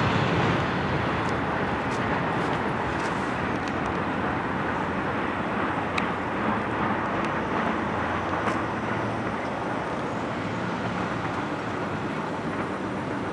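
Steady rumble of a train that has just passed, fading slowly, giving way to the noise of road vehicles as they start across the tracks.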